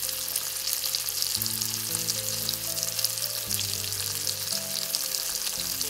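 Bacon and sliced mushrooms sizzling in a hot, oiled frying pan as a spatula stirs them, giving a steady crackling hiss.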